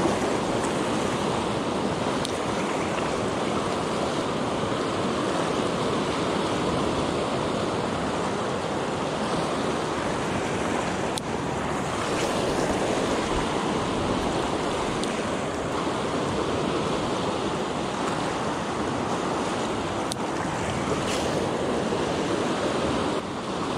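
A mountain river rushing steadily over its bed: a loud, even wash of flowing water.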